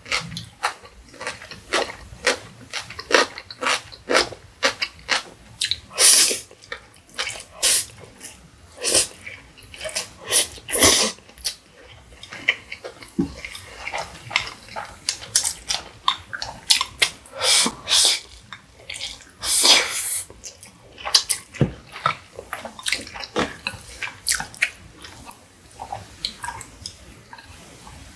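Close-miked eating of Indomie Mi Goreng instant noodles: a steady run of wet mouth smacks and chewing clicks, broken by several longer slurps of noodles.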